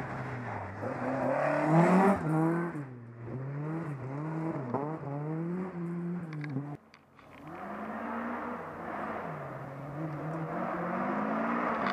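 Distant rally car engine revving up and dropping back over and over as it shifts through the gears on a gravel stage. The sound breaks off abruptly for about half a second about seven seconds in, then carries on.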